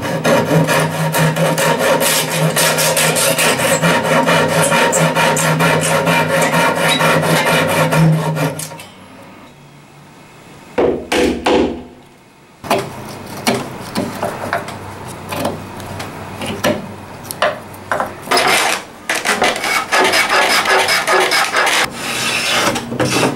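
Japanese hand saw cutting wood in quick, steady strokes for about nine seconds. After a short pause, a mallet taps a chisel into the wood in separate sharp blows, and near the end comes a run of rubbing strokes along the board.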